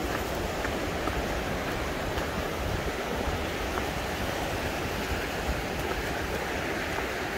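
Steady rushing of a mountain stream flowing over rocks, an even noise that holds at one level throughout.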